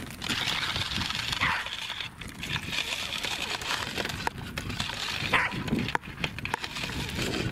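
Pembroke Welsh corgi giving short excited yelps as it runs, twice: about a second and a half in and again later. Small scuffs and clicks come from its running over gravelly dirt.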